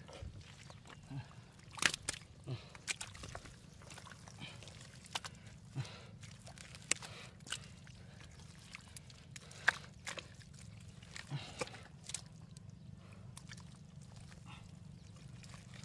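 Wet mud squelching and sucking as a bare arm probes a water-filled hole in mud under a mat of roots, with irregular sharp wet clicks and small splashes every second or so.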